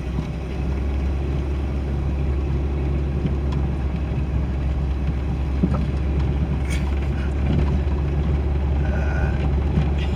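2001 Jeep Cherokee running and driving slowly, a steady low rumble. The Jeep was suspected of rod knock, and its flex plate bolts have just been tightened to cure the knocking.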